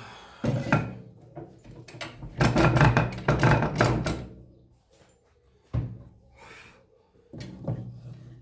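Knocks and clatter of wood being handled on a workbench: a thump about half a second in, a stretch of rattling knocks in the middle, and two more thumps later on.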